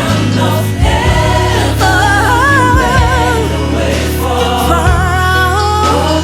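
Live gospel worship band with singers holding long, wavering notes over steady bass and drums.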